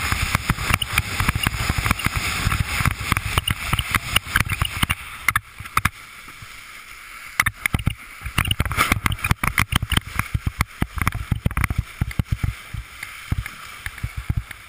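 Wind buffeting an action camera's microphone and water rushing past as a windsurf board planes across choppy water, the Fanatic Falcon 104 board's hull slapping the chop in many quick, sharp knocks.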